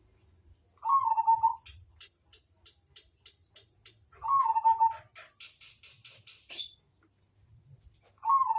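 Zebra dove (perkutut) cooing: three short coo phrases a few seconds apart, with runs of quick ticking notes between them.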